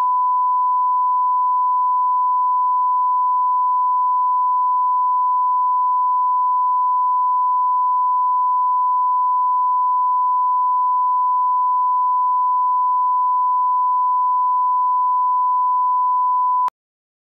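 Bars-and-tone line-up test tone: a single steady pure beep held at one pitch, cutting off suddenly near the end.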